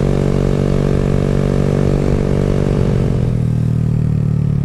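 Honda Grom's 125 cc single-cylinder engine running through a loud aftermarket exhaust with its removable baffle taken out, holding a steady note at cruising speed. About three seconds in, the engine note starts to fall as the bike slows.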